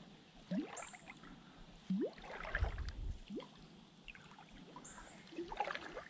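Creek water gurgling and sloshing around a wading angler, with a few short rising gurgles and a soft low thump.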